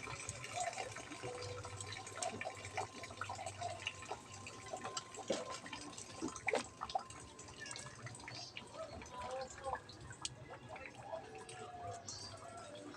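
Faint kitchen water sounds: water dripping and trickling, with scattered small clicks and knocks.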